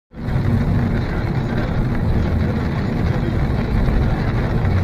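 Steady low rumble and hiss of a car driving on a rain-soaked highway, heard from inside the cabin.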